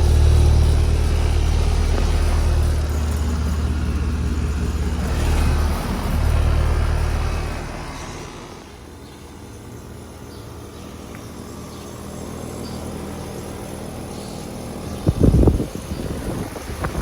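Steady low mechanical hum that drops away about eight seconds in, leaving a quieter hiss, then a loud short thump near the end.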